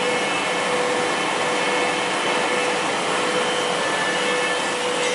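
Twin-screw extruder pelletizing line running: steady machine noise with a steady mid-pitched tone, like the hum of blowers and motors.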